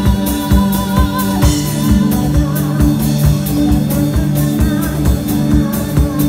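Live band music: a drum kit playing a steady beat over held low keyboard notes that change every second or so, with a voice singing.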